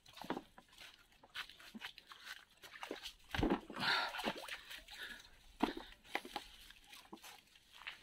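Footsteps crunching and rustling through dry leaves and brush, as a series of uneven crackles, with a louder spell of brushing and crunching about three and a half seconds in.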